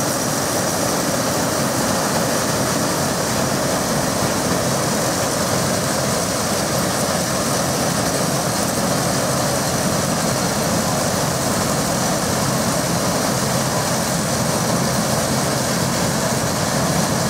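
Vintage Holt combine harvester running: a steady mechanical noise of engine and threshing machinery that holds even throughout.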